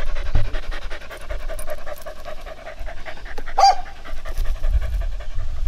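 Hunting dog panting fast and rhythmically with her mouth open, with a brief squeaky note about three and a half seconds in.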